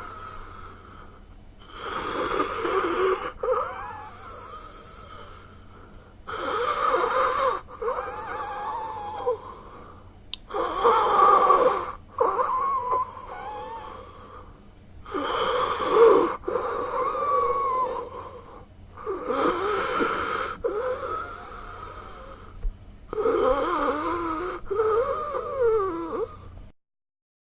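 A person breathing heavily with a wheeze: each breath carries whistling tones that waver up and down in pitch. About six louder breaths come roughly four seconds apart, with quieter breaths between, and the breathing stops abruptly just before the end.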